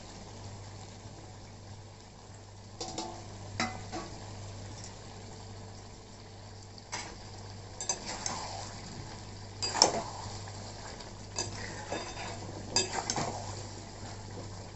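A flat metal spatula stirring thick chicken masala in a metal pan, scraping and knocking against the pan in irregular strokes, the loudest about ten seconds in, over a low steady hum.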